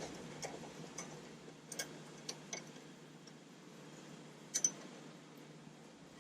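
A handful of light, irregular clicks and taps of small metal parts and hand tools being handled, the loudest a double click near the end, over a quiet room hum.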